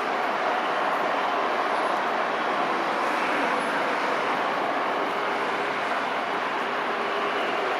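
Jet engines of an Airbus A330-200, a steady rushing noise with no sudden changes.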